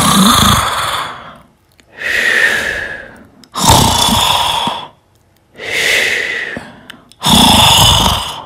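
A person snoring in a steady breathing cycle. Three loud snores on the in-breath, each starting abruptly, alternate with two softer out-breaths that fade away, about one breath cycle every three and a half seconds.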